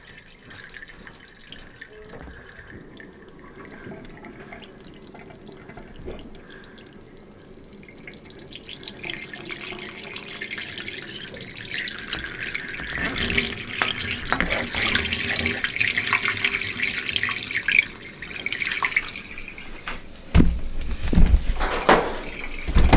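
Water from the kitchen sink rushing down a 1.5-inch drain line at an open basement cleanout. It starts faint and swells to a steady rush about halfway through: the line is draining freely, the clog cleared. Low thumps near the end.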